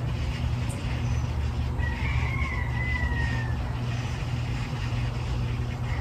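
Steady low rumble, with a long, thin, high-pitched call that falls slightly in pitch about two seconds in.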